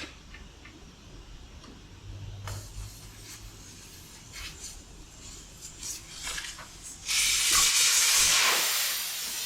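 Compressed air hissing out of the front air suspension bags as they are deflated to drop the truck, starting abruptly about seven seconds in and easing off slightly near the end. Before it, a few faint clicks and knocks.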